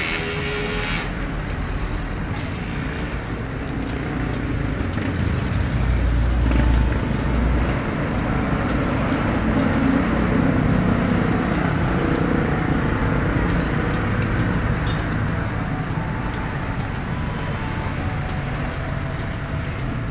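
Steady rumble and hiss of road traffic, with a louder low rumble about six seconds in, as a vehicle passes.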